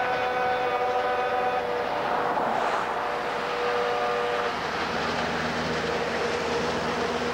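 Steam locomotive whistle blowing long held blasts that break off and sound again a couple of times, with a rushing noise about two and a half seconds in as the engine works toward the camera.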